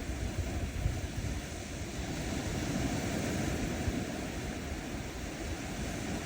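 Small ocean waves breaking and washing up a sandy shore, the wash swelling about halfway through, with a low rumble of wind on the microphone.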